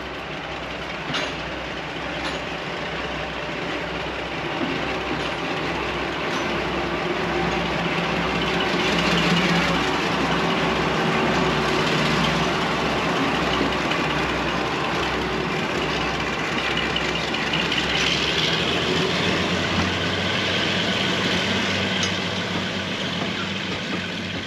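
Class 42 Warship diesel-hydraulic locomotive D821 Greyhound running past with its twin Maybach diesel engines, an even low pulsing throb that is loudest as it comes closest. From about 18 seconds the throb fades and the steady rumble of its coaches rolling over the rails takes over.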